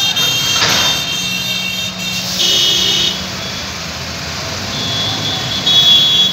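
Truck-mounted mobile crane's diesel engine running steadily under load as it hoists a steel shipping container. A high, steady electronic warning tone sounds in short spells, about two and a half seconds in and twice more near the end.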